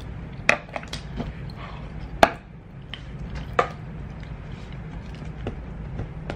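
Several sharp clicks and knocks of small objects being handled and set down, the loudest about two seconds in, over a steady low hum.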